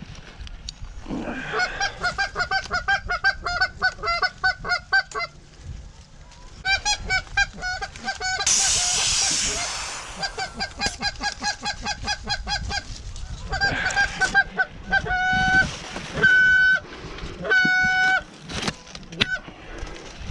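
Geese honking and clucking in quick runs of short, sharp calls, with single longer honks near the end. A hiss lasting about a second and a half sounds partway through.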